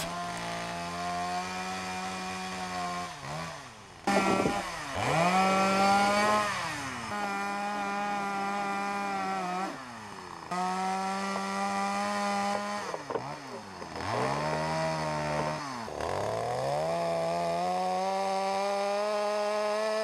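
Stihl two-stroke chainsaw running and cutting through a log. The engine pitch drops and climbs back several times as the throttle and load change, and it is loudest a few seconds in.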